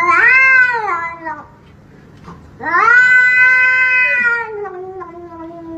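Domestic cat yowling in two long drawn-out calls: a short one that rises and falls, then after a brief pause a longer one that rises and slowly sinks in pitch.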